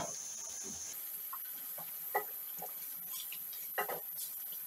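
Thick masala gravy with chicken liver being stirred with a spatula in a steel pan, giving a few short wet plops and squelches as it simmers.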